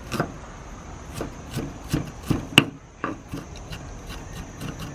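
Kitchen knife chopping on a round wooden cutting board: uneven knocks of the blade on the wood, a few a second, with one sharper strike about two and a half seconds in.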